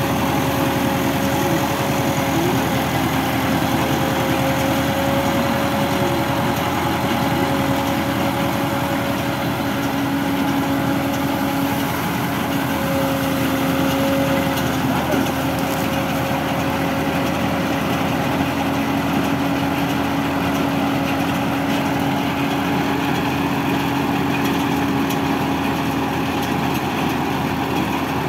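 Tractor diesel engine running steadily while driving a PTO-powered mini round baler that picks up dry crop residue, with a steady machine hum over the engine noise.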